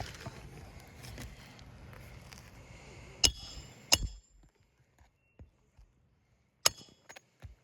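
Hammer striking roofing nails into an asphalt shingle: a few sharp, separate blows with a slight metallic ring, two around three to four seconds in and another few near the end.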